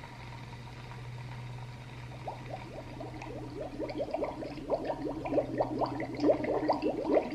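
Sound machine speaker playing an ambient sound preset: a low steady hum that fades after about six seconds, and from about two seconds in a quickening run of short rising blips that grow denser and louder.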